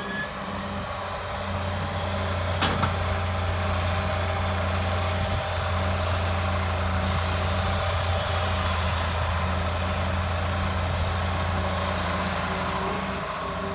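Hitachi 220 hydraulic excavator's diesel engine running steadily under load as it swings and digs wet sand, growing louder about two seconds in. A single sharp clank sounds a moment later.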